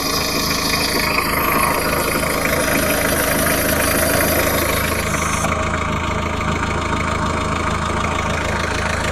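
Citroën XM 2.1 TD four-cylinder turbodiesel engine idling steadily, with a rapid, even clatter from the valve gear, which the owner puts down to the rocker arms.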